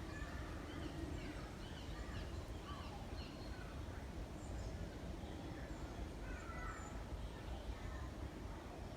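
Faint, scattered bird chirps, short rising and falling calls every second or so, over a steady low outdoor rumble.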